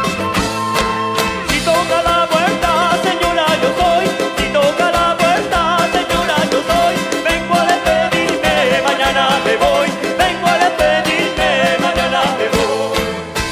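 A live band playing upbeat Latin American dance music, with a steady beat and a wavering melodic lead line over the band.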